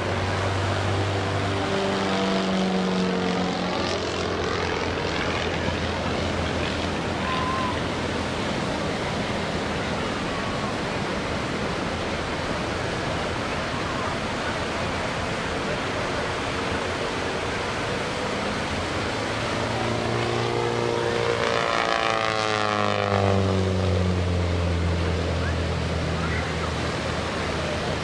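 Pitts aerobatic biplane's piston engine and propeller buzzing through aerobatic manoeuvres. It is loudest as it passes twice, near the start and again about twenty seconds in, and its pitch slides down each time. Under it runs a steady background hiss.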